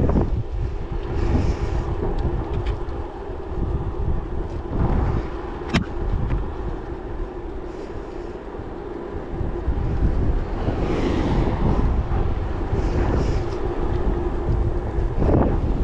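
Wind buffeting the microphone of a handlebar-mounted camera while riding a bicycle along a road, with rumble from the ride and a faint steady hum underneath. A single sharp click about six seconds in.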